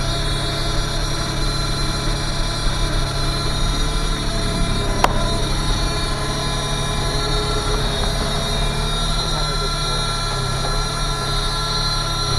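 Sany SY35U mini excavator's diesel engine running steadily, heard from inside the cab, with a single sharp click about five seconds in.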